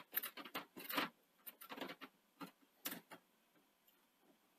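A screwdriver and small metal parts clicking and scraping against the sheet-metal cassette basket and chassis of a Betamax video recorder, as parts of the front-loading mechanism are worked loose by hand. An irregular run of quick clicks and short scrapes lasts about three seconds.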